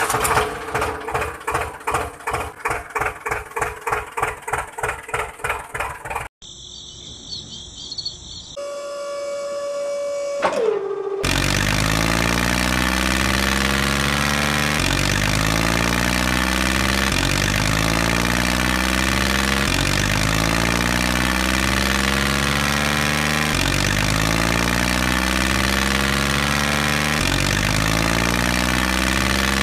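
Tractor engine sound, chugging at about three beats a second for the first six seconds. After a short break there is a held tone that falls away around ten seconds in. From about eleven seconds on the engine runs steadily.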